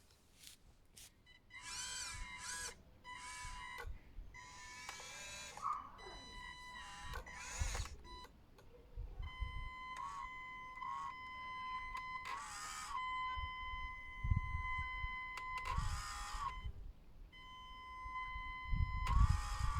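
Radio-controlled model excavator's small electric motors whirring in a string of short bursts as it moves. From about halfway through, a steady high electronic whine from the motor controllers sounds between the bursts.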